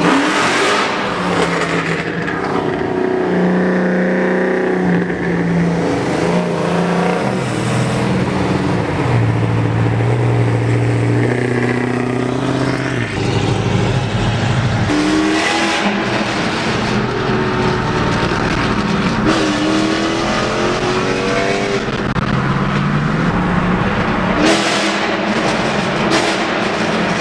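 Cammed 6.1 L Hemi V8 of a Chrysler 300 SRT8 with a full straight-pipe exhaust, loud under hard acceleration, its pitch climbing and dropping repeatedly as it pulls and shifts. A few sharp cracks come about halfway through and again near the end.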